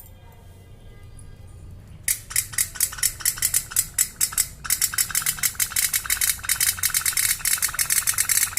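Tin pop-pop (put-put) toy steam boat's engine starting to run: a rapid metallic ticking putter that begins about two seconds in and becomes faster and steadier about halfway through.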